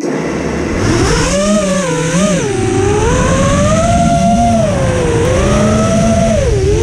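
FPV racing quadcopter's brushless motors and propellers whining in flight, the pitch rising and falling with the throttle, over a rush of air noise.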